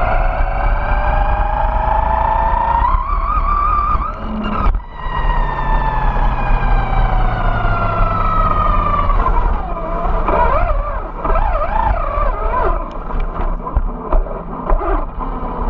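Electric drive motor and gears of a Vaterra Glamis Uno RC buggy whining, heard from a camera mounted on the car. The pitch rises as it speeds up, cuts out briefly about five seconds in, then falls slowly as it coasts. In the second half it wavers up and down with short throttle bursts, over gritty tyre noise on asphalt.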